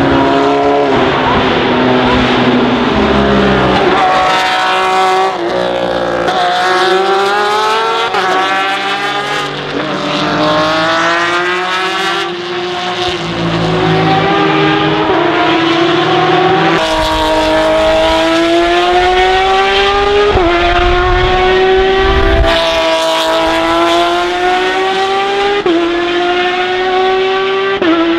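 Porsche 911 RSR (991.2) race cars' mid-mounted 4.0-litre flat-six engines on open exhaust, accelerating hard through upshifts. The pitch climbs, drops sharply at each gear change and climbs again, over and over, as several cars go by one after another.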